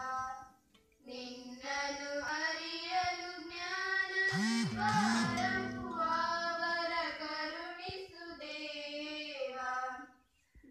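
Children singing together, a melody sung in long phrases, with a short break about half a second in and another near the end.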